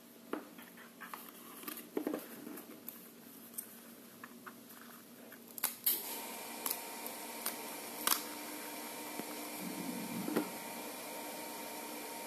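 Cardboard box and plastic insert being handled, with small clicks, taps and rustles as the Mi Band 2 tracker capsule is worked out of its packaging. About halfway through, a steady background hum with a faint whine comes in under the handling clicks.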